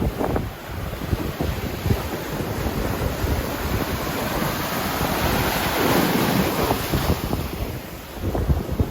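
Surf from a typhoon swell breaking on the beach, one wave's rush building to its loudest about six seconds in, with wind buffeting the microphone.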